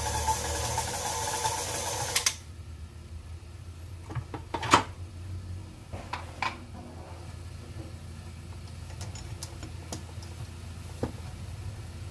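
KitchenAid 5-quart bowl-lift stand mixer running while it kneads dough with the dough hook, then cutting off suddenly about two seconds in. After that come a few scattered knocks and clicks, the loudest about five seconds in, over a low hum.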